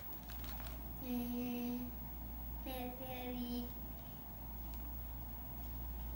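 A voice sings or hums two held notes, one after the other, the second dipping slightly in pitch as it starts. A few faint rustles of a plastic bag being handled come near the start.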